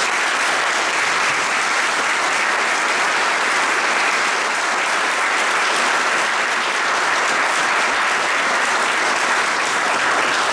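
Church congregation applauding steadily.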